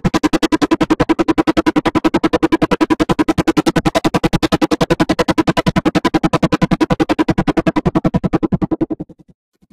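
Synthesizer logo music heavily processed with a fast tremolo-like stutter, chopping it into about ten even pulses a second; it cuts off suddenly near the end.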